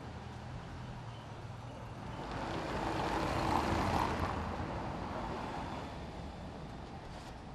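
A road vehicle passing by, its sound rising to a peak about halfway through and fading away, over a steady low hum.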